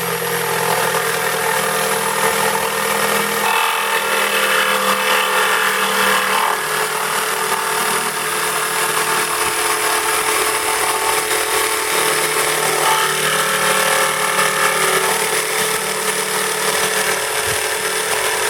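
Electric jigsaw with a Bosch 10 TPI wood blade running steadily while cutting through an oak floorboard with nails embedded in it.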